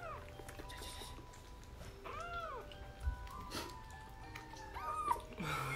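Kitten mewing in short, arching cries, three or so about two seconds apart, over soft background music.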